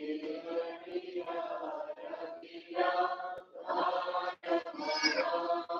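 Church choir singing a Malayalam hymn in held, phrased lines. The sound drops out for an instant a little after four seconds.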